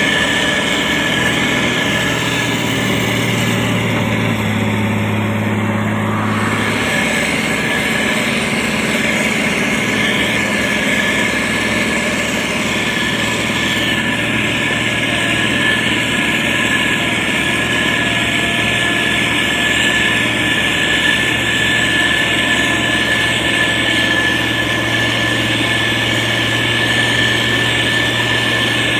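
Heavy diesel engine of a SANY STG190C-8S motor grader running steadily as it works. A steady high whine sits over it, and the low engine note is heavier for the first several seconds before easing.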